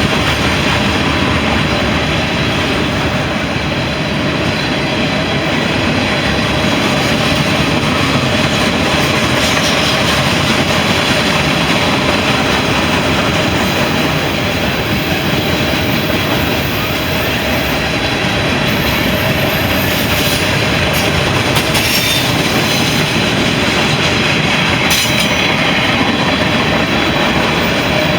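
A loaded CSX mixed freight train's cars rolling past on the rails: a loud, steady wheel-on-rail noise that does not let up.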